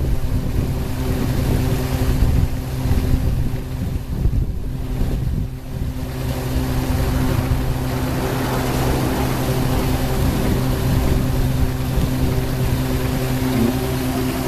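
Gearless paddle-wheel aerator running in a pond: a steady mechanical hum from its direct-drive motor under the constant splashing and rushing of its two impeller wheels churning the water.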